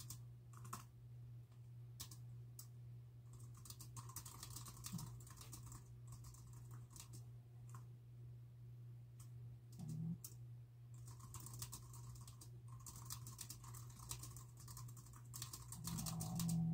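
Typing on a computer keyboard: a few separate keystrokes, then two runs of quick, continuous typing of about four seconds each, over a steady low hum. A brief low sound joins the typing near the end.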